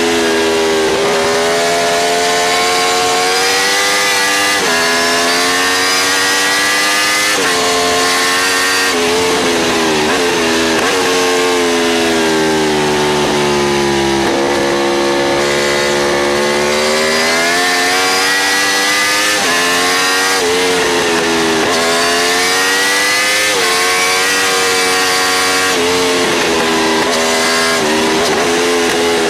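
Aprilia RSV4 V4 engine under hard acceleration, its pitch climbing through the gears and dropping sharply at each upshift, easing down off the throttle about halfway through, over wind rush.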